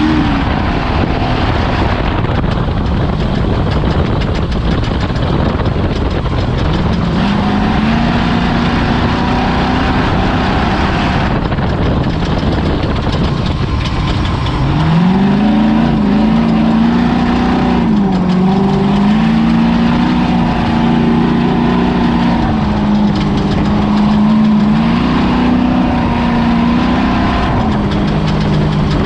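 Ford Ranger desert race truck's engine under hard driving over a loud, constant rush of noise. Its pitch climbs about a quarter of the way in, then rises sharply around halfway and keeps rising and dropping as the throttle comes on and off.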